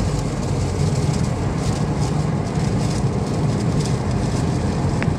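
Steady road and tyre noise with engine drone, heard from inside a car's cabin cruising at motorway speed.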